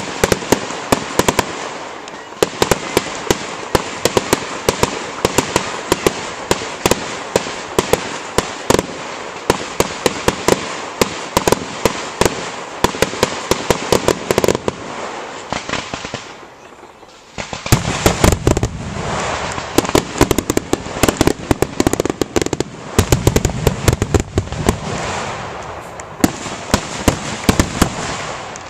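Aerial fireworks: a dense, rapid series of sharp cracks from crackling shells. After a short lull about two-thirds of the way through, deep booms of larger shells bursting come in under the continuing cracks.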